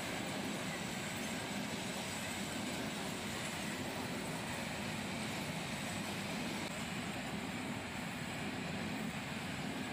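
Freight train of flat wagons carrying new cars running steadily past, a continuous even noise of wheels on rail.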